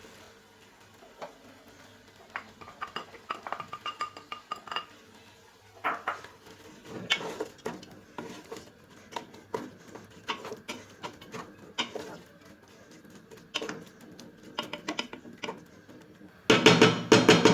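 A spoon clinking, knocking and scraping against a metal cooking pot as chopped onion is added to the frying meat and stirred, with a few short metallic rings, then a louder burst of clattering near the end.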